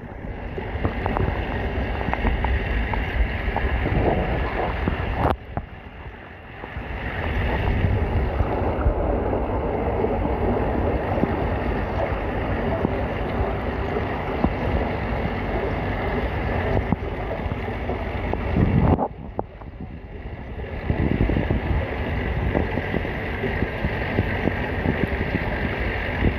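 Muffled, steady rumble and crackle of water around a submerged camera's microphone, dropping quieter briefly about five seconds in and again near twenty seconds.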